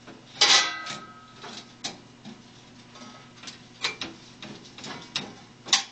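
Hand work on a metal monitor frame: irregular sharp clicks and clinks of a screwdriver and screws being handled. The loudest comes about half a second in with a brief metallic ring, and smaller ticks follow every second or two.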